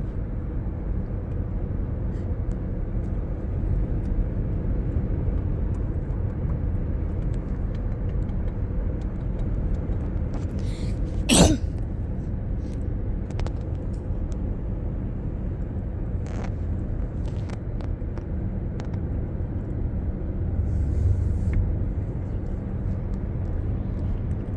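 Steady road and engine noise heard from inside a moving car's cabin, with one short, sharp sound about halfway through.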